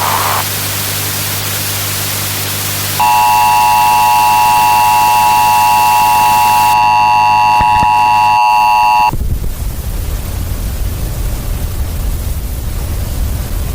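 Harsh static hiss with a low steady hum. About three seconds in, a loud steady electronic alert tone in the manner of the Emergency Alert System attention signal comes in over the static, lasts about six seconds and cuts off abruptly. The static then carries on over a low rumble.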